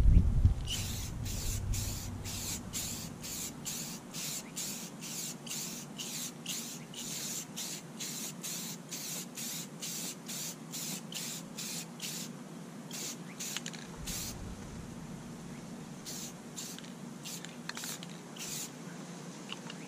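Aerosol can of clear spray paint hissing in many short bursts, about two a second, as a second clear coat goes onto a plastic headlight lens. After about 13 seconds the bursts come fewer and farther apart.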